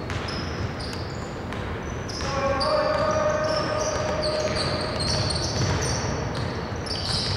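Basketball game play on a hardwood court: sneakers squeaking in quick, repeated chirps as players run, and the ball bouncing. A held, steady pitched call or tone sounds for a couple of seconds starting about two seconds in.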